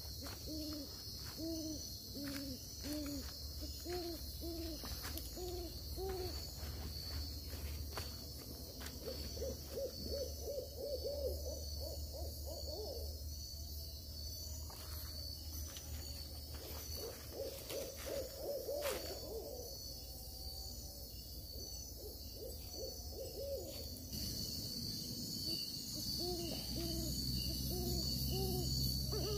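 An owl hooting in repeated short notes, at first about two a second, twice quickening into fast runs of notes, then slowing again near the end. A steady high insect drone runs underneath.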